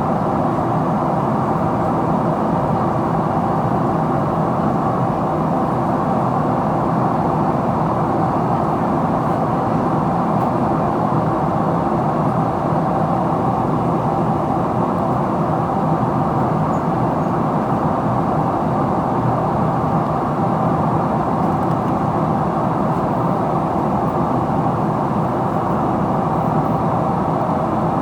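Steady cabin noise inside a Boeing 777-300ER in descent: air rushing past the fuselage and the GE90 engines droning at low power, with a steady hum running through it.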